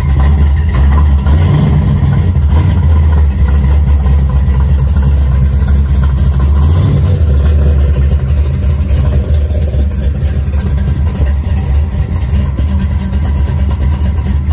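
464-cubic-inch naturally aspirated big-block Buick V8 with Stage 2 heads, running at a loud, steady idle with a deep low rumble.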